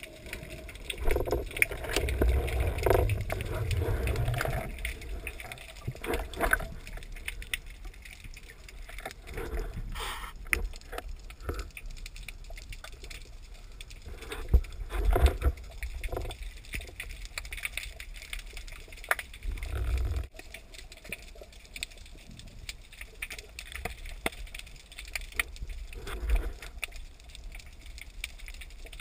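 Muffled underwater sound picked up through a GoPro's waterproof housing as a freediver swims with a speargun: low rumbles and thumps of water movement and handling, several of them stronger, with scattered faint clicks.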